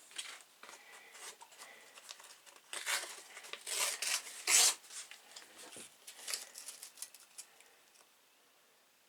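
1000-grit sandpaper rubbed by hand over the steel blade of a Zippo pocketknife, in irregular scratchy strokes. The strokes are heaviest a few seconds in and die away near the end.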